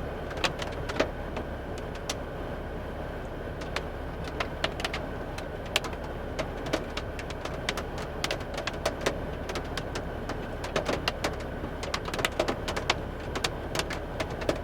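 Steady low wind rumble ahead of a derecho squall line, with many irregular sharp ticks and taps scattered through it.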